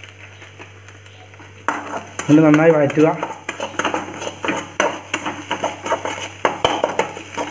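Metal spatula stirring and scraping flattened rice around a metal kadai, a quick run of scrapes and clinks against the pan that starts about two seconds in.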